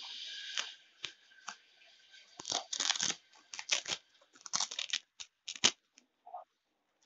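Paper flashcards being drawn out of a small green pouch: rustling and scraping of card against the pouch, a brief hiss as the flap is opened, then a string of short, sharp scrapes.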